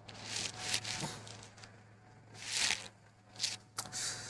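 Three short, soft breathy puffs from a man: stifled laughter, with one about half a second in, one in the middle and one near the end.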